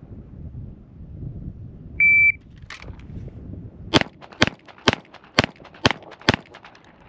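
A shot timer gives one short beep, and about two seconds later a Springfield Armory Prodigy 9mm pistol fires six quick shots about half a second apart. It is a Bill drill, with the last shot 4.30 seconds after the beep.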